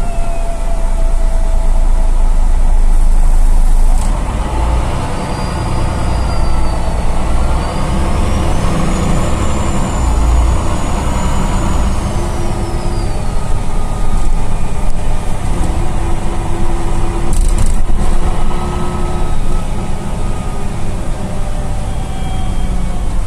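MAN NL263 low-floor city bus heard from inside the passenger cabin while under way. Its diesel engine and drivetrain rumble steadily, and a high whine climbs in pitch, holds, then falls away as the bus gathers speed and slows. A short hiss comes about three quarters of the way through.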